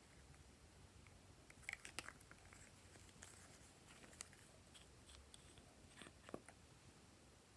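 Faint clicks and taps of small plastic nail polish bottles being handled, then a twisting scrape as a screw cap is unscrewed and lifted off, under a low steady room hum.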